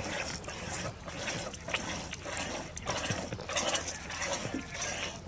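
Goat's milk squirted by hand from the teat in short hissing streams, about two squirts a second, spattering onto cats' fur.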